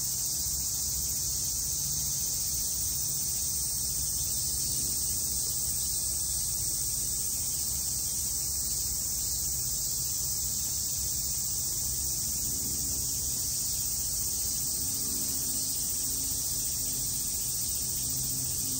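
Steady chorus of summer cicadas, an even high-pitched sizzle that does not let up, over a faint low hum.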